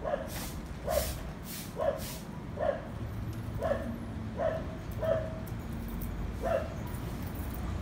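A dog barking over and over, about one bark a second.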